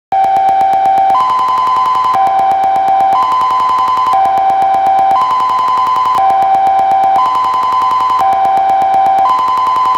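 Kockum Sonics Delta-4 TK electronic alarm sounder starting its fire alarm signal: a loud two-tone that cuts in abruptly and alternates between a lower and a higher tone about once a second.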